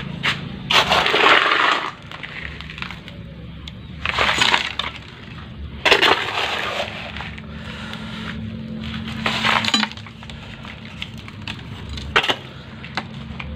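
Coarse river sand mixed with soil poured and scooped into a large plastic pot, in about five gritty, rattling pours of a second or so each, over a steady low hum.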